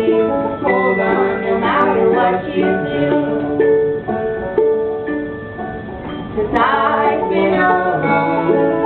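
Live acoustic band music with plucked string instruments playing a run of notes.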